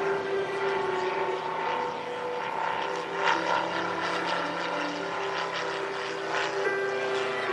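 Large RC scale model Boeing Stearman biplane's engine and propeller droning in flight, the note shifting in pitch a little as the plane manoeuvres and pulls up into a climb, with a brief swell in loudness about three seconds in.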